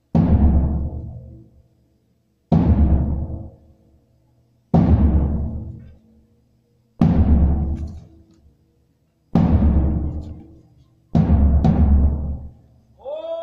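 Music of six heavy, booming timpani-like drum hits, one about every two and a quarter seconds, each ringing out and fading over about a second and a half. Just before the end a chant of voices begins.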